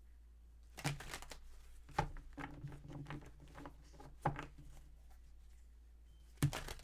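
A deck of tarot cards being shuffled by hand, the cards clacking and slapping together in a few quick clusters: about a second in, around two to three seconds, past four seconds and again near the end.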